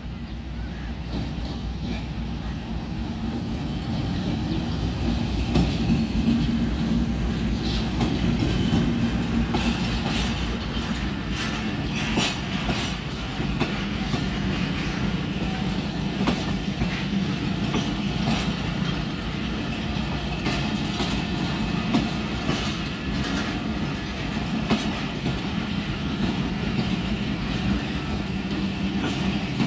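A Pakistan Railways passenger train passes slowly on the platform track. The diesel locomotive's engine grows louder over the first few seconds as it draws level, then the coaches roll by with a steady clickety-clack of wheels over the rail joints.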